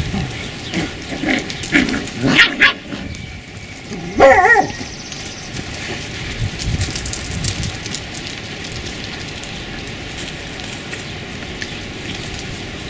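Beagles yipping and barking in a few short calls, the loudest a wavering, whining yelp about four seconds in.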